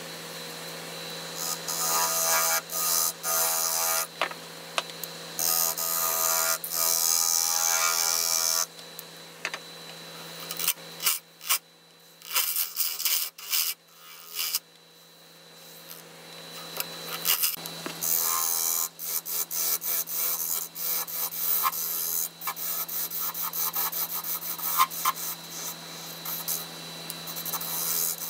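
Wood lathe running with a steady hum while a turning tool scrapes and cuts the face of a spinning wood-and-resin blank. The cutting comes in loud spells that stop and start, quieter through the middle and picking up again later.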